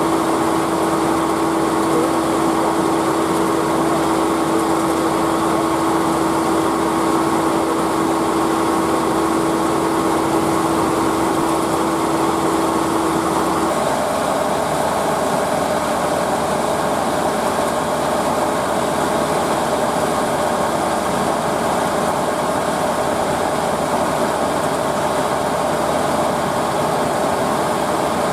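Farm machinery engine running steadily, with a constant whine that jumps to a higher pitch about halfway through.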